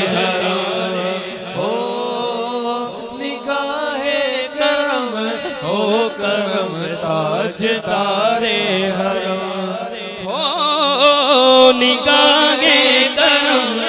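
Male voice singing a naat in long, ornamented phrases with a wavering, sliding pitch, over a steady hummed drone of backing voices.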